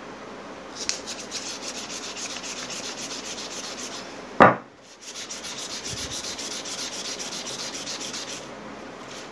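A metal bracket being hand-sanded, with rapid back-and-forth rubbing strokes that stop for a moment about halfway through. One sharp, loud knock comes just as the strokes break off.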